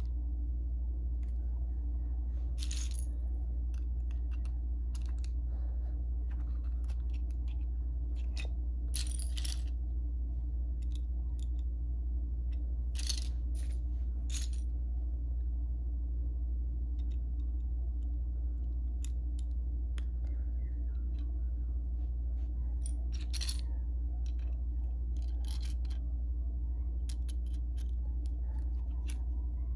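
Plastic Lego bricks clicking and clattering on a wooden floor as pieces are picked from a pile and pressed together, in scattered sharp clicks a few seconds apart, over a steady low hum.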